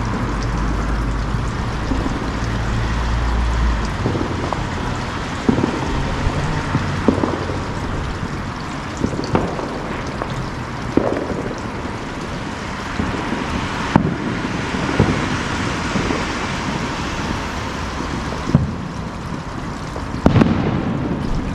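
Distant firework bangs, single sharp reports every second or few, over a steady rushing noise.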